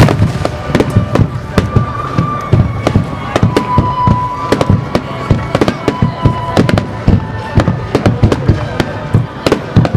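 A rapid barrage of aerial firework bursts: sharp bangs several times a second, one after another, with a few held tones near the middle.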